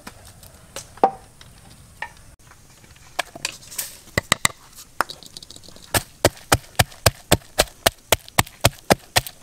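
Wooden pestle pounding red chilies, garlic and salt in a mortar: a few scattered knocks, then a steady run of about four strikes a second over the last few seconds.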